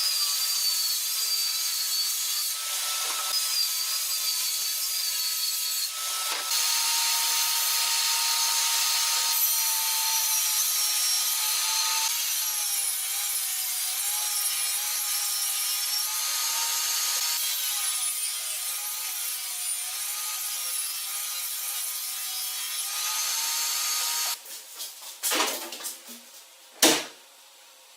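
A power tool cutting or sanding wood, with a steady hiss and a high motor whine that wavers as the load changes. It stops a little before the end and is followed by two knocks, the second louder.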